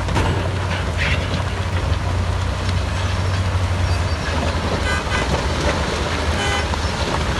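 Heavy diesel earthmoving machinery running steadily with a deep rumble, with two brief high-pitched squeals or toots about five and six and a half seconds in.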